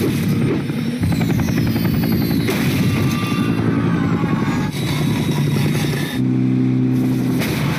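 Cartoon sound effects of a helicopter spinning out of control: fast rotor chopping with crashes, under background music, and a held low tone near the end.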